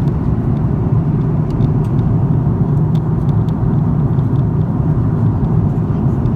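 Steady cabin noise of an Airbus A330-300 in flight, heard inside the cabin: an even, loud, low rumble of the engines and the airflow over the fuselage.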